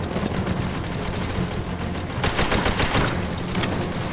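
Rapid gunfire in a film battle soundtrack: rifle and machine-gun shots in quick bursts, thickest about two to three seconds in, over a continuous low rumble.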